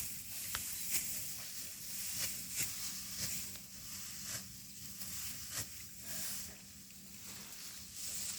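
Dry rice stalks being worked by hand in a manual harvest: short rustling, crunching strokes, roughly one every half second to a second, over a faint steady low hum.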